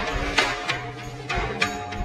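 Background music with a percussive beat over sustained pitched notes.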